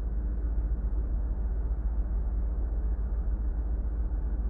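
Steady low rumble of a ship's engine-room machinery, an even drone with no distinct knocks or clicks standing out.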